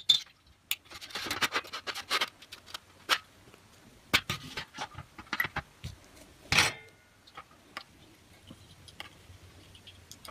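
Clicks, taps and rustles of a partly assembled Elenco FM-88K radio kit circuit board, fitted with capacitors and other components, being handled and turned over on the work mat. Two louder knocks come about four and six and a half seconds in, then it settles to faint ticks.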